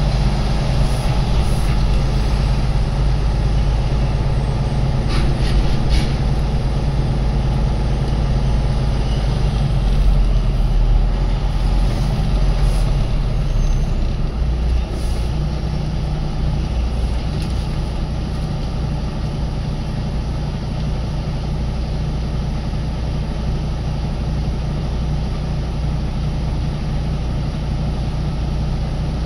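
Truck engine heard from inside the cab, running steadily with a low hum. About halfway through its tone shifts and it settles to a slightly quieter idle as the truck stands at the gate.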